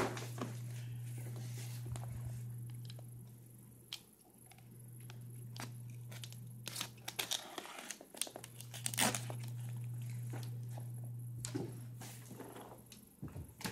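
Cardboard snack box being handled and torn open: scattered crinkling, tearing and scraping, with louder bursts about seven and nine seconds in. A steady low hum runs underneath, fading out twice.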